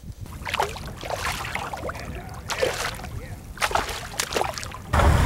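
Hooked grayling thrashing at the water's surface, a few irregular splashes and sloshes. About five seconds in, the sound cuts to loud wind rumble on the microphone.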